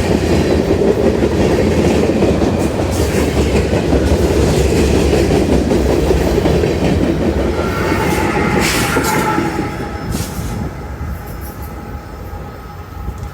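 CSX freight train passing at speed: a loud, steady rumble of wheels on rail with clickety-clack over the joints. About eight seconds in, the noise begins to fade as the train goes by, and a thin high ringing from the wheels and rails comes through.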